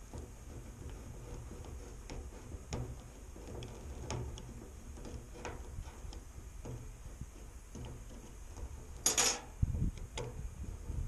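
Manual can opener being cranked around a food can: a run of irregular small clicks, then a brief louder scraping rasp about nine seconds in, followed by a few low knocks.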